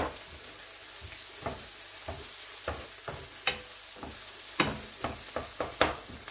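Onions, green peppers and tomato paste sizzling in oil in a granite-coated frying pan while a wooden spoon stirs them, its scrapes and knocks against the pan heard as irregular sharp clicks over the steady hiss of the frying.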